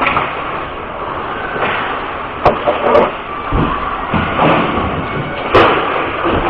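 Ice hockey game in play: a steady wash of skates scraping the ice and rink noise, with three sharp hits, about two and a half, three and five and a half seconds in, the last the loudest.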